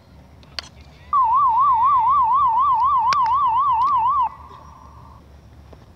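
Loud electronic siren tone warbling rapidly up and down, about five times a second, for about three seconds. It cuts off abruptly, leaving a fainter steady tone for about a second. A couple of sharp clicks are heard, one before the warble and one during it.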